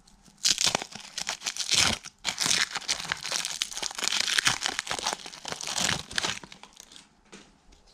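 Foil wrapper of a 1991 Pacific football card pack crinkling and tearing as it is ripped open by hand, with dense crackling that dies away near the end.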